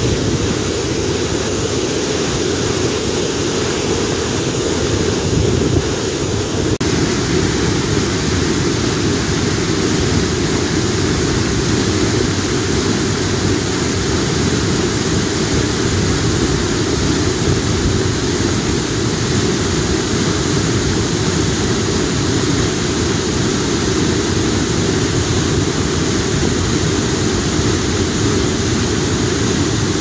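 A tall waterfall plunging into its plunge pool: a loud, steady rush of falling water, heaviest in the low end.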